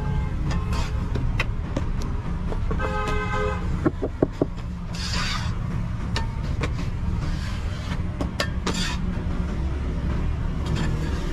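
Hands scraping and pressing cement mortar into a steel baluster mould, with scattered knocks, over a steady low engine drone. A brief horn toot sounds about three seconds in.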